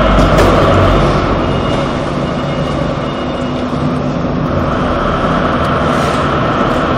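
Curb stone making machine running with a steady mechanical hum and whine, dipping slightly in level in the first half before building again.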